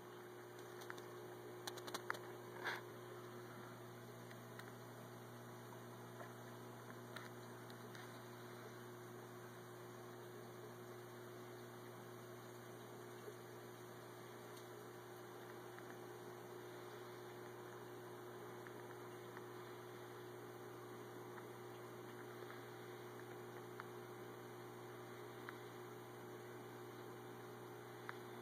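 Steady low electrical hum of a reef aquarium's pumps, with a few faint clicks about two to three seconds in.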